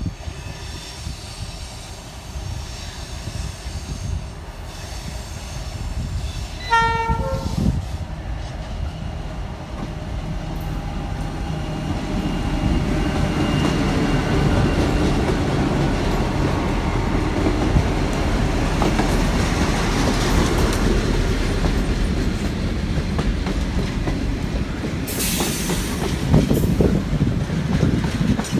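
Freight train hauled by 81 class diesel-electric locomotives passing at low speed, slowing to cross into the loop: a short horn blast about seven seconds in, then the locomotives and wagons rumbling louder with wheel clatter. Wind buffets the microphone.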